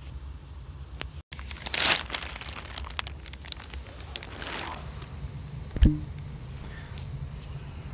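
Plastic sheeting crinkling and rustling in two bursts, about two seconds in and again around four seconds in, with a single knock near six seconds, over a steady low hum.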